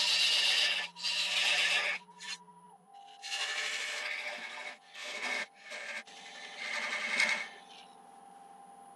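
Parting tool cutting into spinning sycamore at the base of a lathe-turned vase, in a series of scraping bursts as the tool is pushed in, parting the vase off its waste block. The lathe's steady whine runs underneath and drops in pitch about three seconds in.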